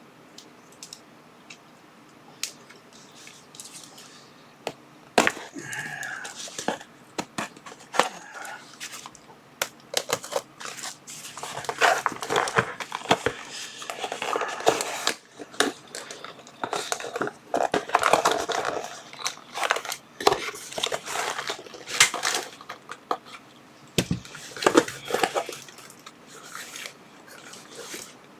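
Plastic packaging being crinkled and torn open by hand, with scattered clicks and taps of items being handled; the rustling is heaviest in the middle stretch.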